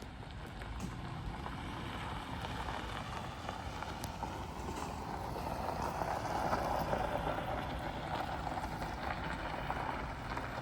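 Camper van driving: steady road and tyre noise over a low rumble, growing louder around the middle.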